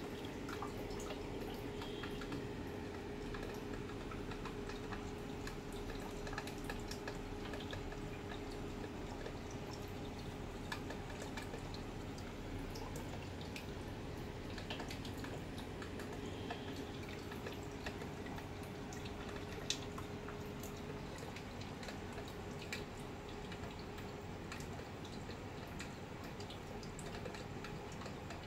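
Reef aquarium's circulating water: a steady trickle with many small drips and splashes, over a steady hum, and one sharper click about twenty seconds in.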